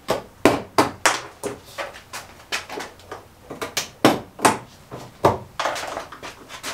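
Irregular run of sharp knocks and clicks, two or three a second, from hand tools and plastic fasteners being worked loose on a car's front end.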